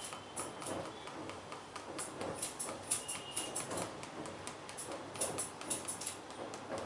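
Massage sounds: hands working over a person's body, with many quick, irregular light taps and clicks.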